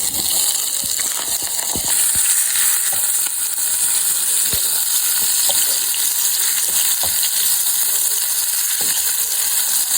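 Saltfish, prawns and bacon frying in hot oil in a pan, a steady sizzle, with a few clicks of a utensil stirring them.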